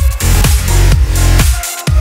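Electronic dance music with a heavy, sustained bass line under a dense, bright mix.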